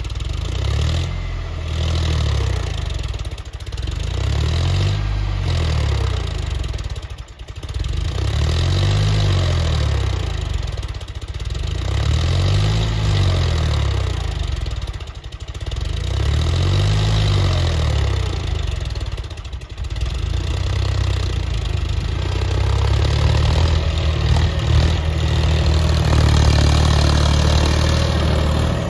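John Deere tractor's diesel engine running under load as it pulls a cultivator through ploughed soil, its note rising and falling every few seconds, then holding steadier and louder near the end.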